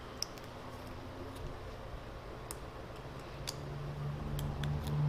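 Light metallic ticks and clicks, about one a second, of a steel rule and fingers working against a hydraulic cylinder gland while a tube seal is set straight in its groove. A low steady hum comes in about three seconds in and grows louder.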